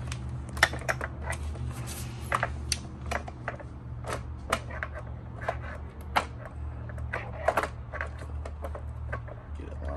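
Irregular clicks and knocks of plastic and metal parts as a mobility scooter's steering tiller is worked down onto its steering base, over a steady low hum.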